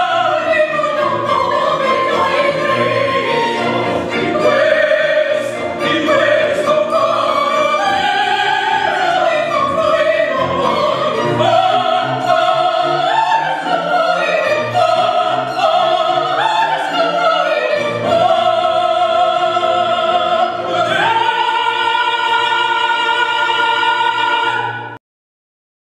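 A male opera singer sings with a string quartet accompanying. Near the end he holds one long high note, and the sound cuts off suddenly.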